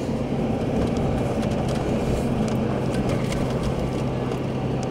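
Car driving on a paved road, heard from inside the cabin: the engine and tyres make a steady hum with a low drone.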